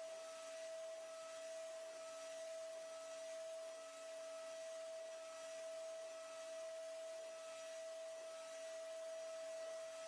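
CNC milling machine spindle running with a steady, quiet whine at one constant pitch over a light hiss.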